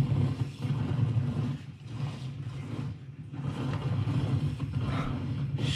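Mountain bike ridden fast down a wet trail: a steady rush of tyre noise and the bike rattling over rough ground.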